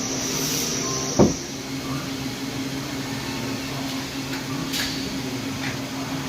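A powered-up Doosan Puma 2500 LSY CNC lathe hums steadily. A single heavy clunk comes about a second in, and a short hiss follows near five seconds in.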